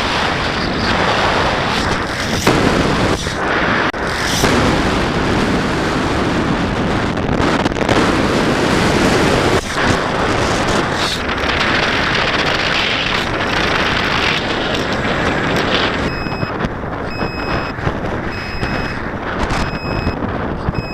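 Loud, gusty wind and airflow buffeting the microphone of an FPV camera aboard a Radian glider in flight, with a few sharp knocks. Near the end a faint short beep repeats about once a second.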